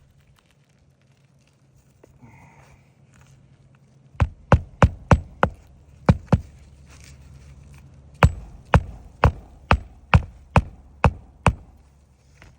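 Hammer driving roofing nails into asphalt shingles: sharp strikes about two a second, in runs of five, two and eight, with several blows to each nail. Before the nailing there is a softer scraping or rustling.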